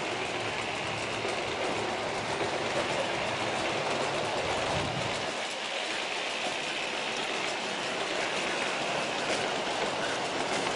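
A long G-scale model train of Aristo-Craft refrigerator cars rolling steadily along the track. It makes an even rumble of many wheels with light clicking over the rail joints.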